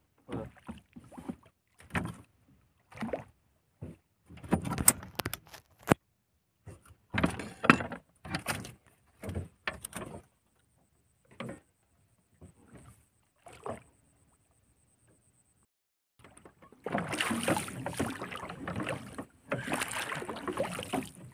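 Handling noises on a small wooden fishing boat: scattered knocks, clicks and rustles as a nylon handline is sorted and let out over the side. About two-thirds of the way through, after a short lull, a steady rushing noise sets in.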